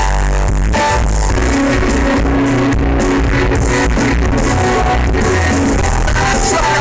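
Live rock band playing loud, with electric guitar, bass and drum kit, and some singing.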